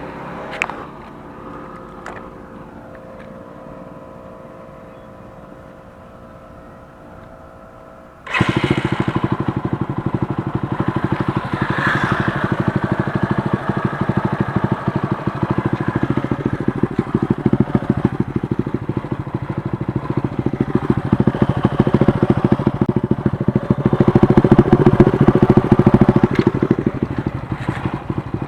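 Bajaj Pulsar 135 LS single-cylinder engine starting about eight seconds in, then running with a fast, even firing beat through a loud free-flow aftermarket exhaust. It grows louder in the later part, then eases off near the end.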